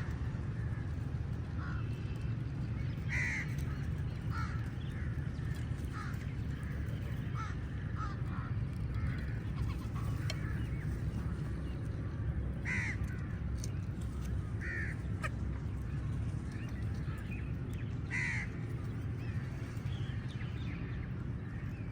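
Crows cawing: scattered short caws, the loudest a few seconds in, twice in the middle and again near the end, over a steady low rumble.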